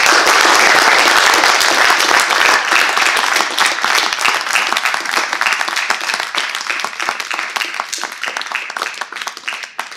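Audience applauding: many people clapping at once, fullest at the start, then gradually thinning out and fading away toward the end.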